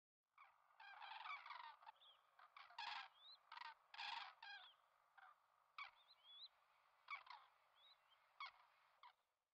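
Common cranes calling: an irregular series of rough, honking calls, densest in the first half and thinning out toward the end. A few faint short rising chirps sound between them.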